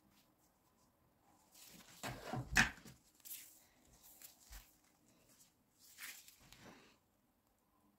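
Rustling and light knocks from hands in disposable plastic gloves handling a kitchen knife and a sponge cake on a silicone baking mat. The loudest burst comes about two and a half seconds in, with a shorter one around six seconds.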